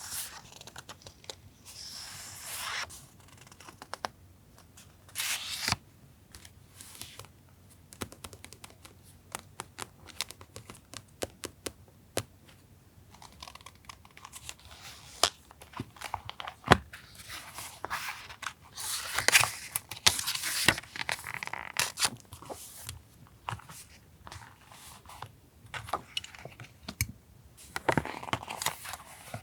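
Paper being handled and torn: rustling, crinkling and tearing of sheets, with many light taps and clicks scattered through.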